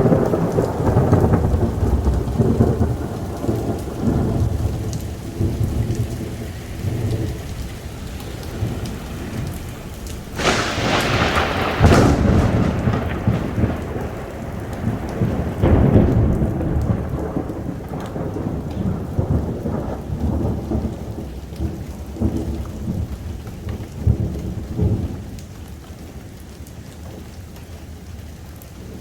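Thunderstorm: rolling thunder over falling rain, with a sharper crack about ten seconds in, and the rumbling dying away near the end.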